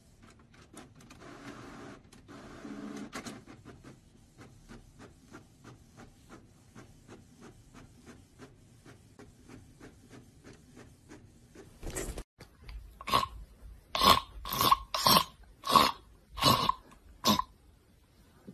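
Inkjet printer printing: a soft whir, then a steady run of faint clicks about three a second as the sheet feeds out. From about twelve seconds in, this gives way to about eight loud short bursts of another sound, about half a second apart.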